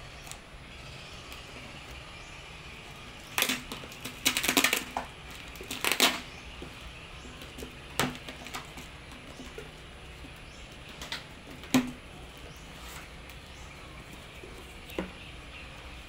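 Packaging rustling and knocking as a box with a porcelain plant pot is opened by hand: irregular bursts of crinkling and sharp clicks, busiest a few seconds in, then a few scattered knocks.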